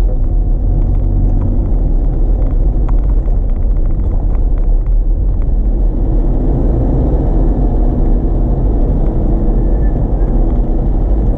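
Road noise inside a moving car's cabin: a steady, loud low rumble from the engine and tyres at road speed.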